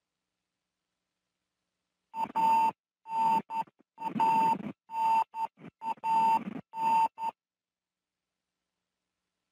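An electronic beeping tone comes in about seven uneven bursts over five seconds, starting about two seconds in. Each beep is a steady single pitch with a rough noisy rumble beneath it.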